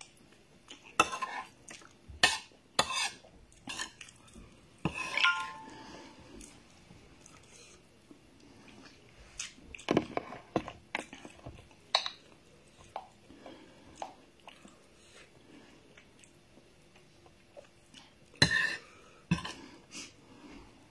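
Close-up eating sounds: wet mouth smacks and chewing of rice and fish, with a metal spoon clinking and scraping on a ceramic plate, coming as scattered sharp clicks in short clusters.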